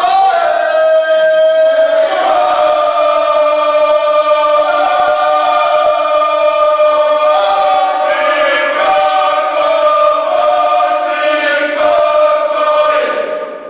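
A small mixed group of men and women singing a folk song unaccompanied, several voices holding long notes together. The singing stops near the end.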